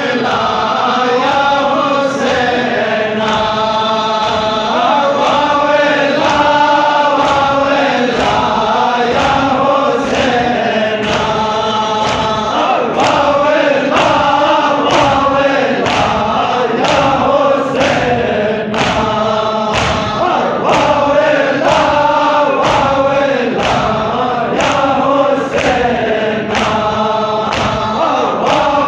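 A crowd of men chanting a Muharram noha in unison, with the slaps of hands striking chests in matam keeping a steady beat of about one a second.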